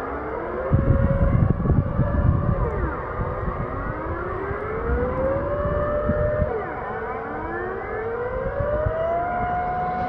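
Dutch air-raid warning siren wailing: its tone rises, holds, drops and rises again about every three seconds, with more distant sirens overlapping at other pitches.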